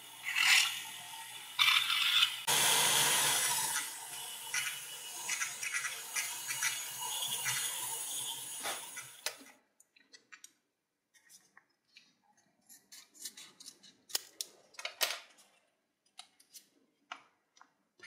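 Small pen-style rotary tool running with a ball burr grinding against the lighter's flint-wheel rivet: a steady motor hum under harsh grinding that stops about nine and a half seconds in. After that, faint rustles and clicks as a small paper wick packet is handled and opened.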